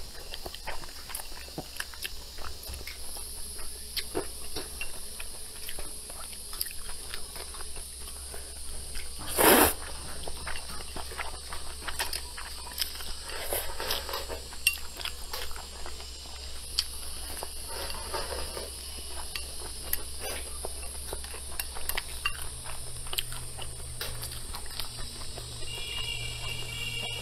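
A person eating noodles with chopsticks: wet slurping and chewing, with chopsticks clicking against the bowl. A few louder slurps break through, the loudest about nine and a half seconds in.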